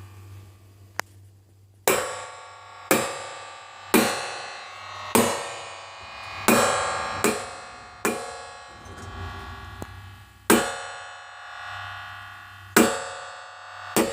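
Sci-fi elevator sound effect: a series of sharp metallic clanks, each ringing out and fading over about a second, coming at uneven intervals over a steady low hum.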